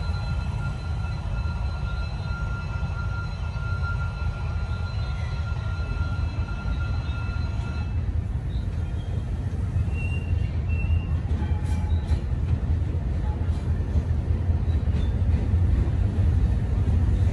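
D19E diesel-electric locomotive approaching with a low engine rumble that slowly grows louder as it nears.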